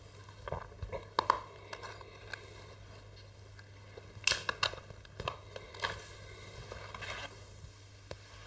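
Small plastic packaging crinkling and tearing as a part is unwrapped by hand, in short irregular bursts with light clicks of handled parts.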